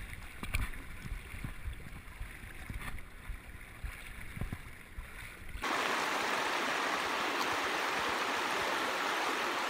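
Shallow river water sloshing and splashing right at the microphone, with low uneven knocks, as the river is waded. About five and a half seconds in it changes suddenly to the steady rush of the river running over a gravel riffle.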